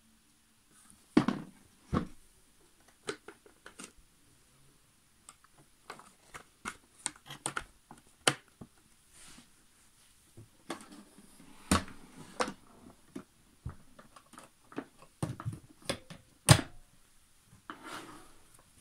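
Irregular plastic clicks and knocks from handling the dust-bag compartment and lid of a Zelmer Cobra 2000 Plus canister vacuum cleaner, with a few sharp louder knocks as the lid is worked and shut. The motor is not running.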